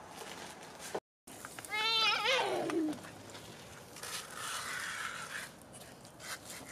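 A young child's high, wavering squeal that slides down in pitch over about a second.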